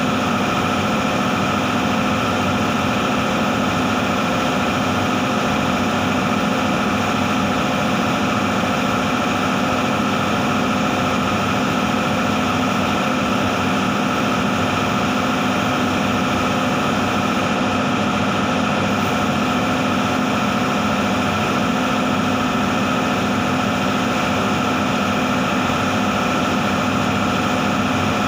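Paint spray booth's machinery running with a steady, unchanging drone and hum.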